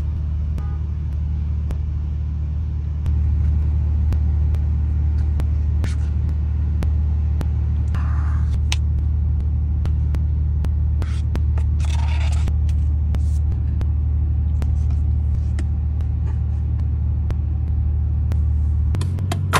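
Steady low rumble of a car idling, heard inside the cabin, getting louder about three seconds in. Over it come light clicks and scrapes of a plastic spoon against paper cups of frozen yogurt.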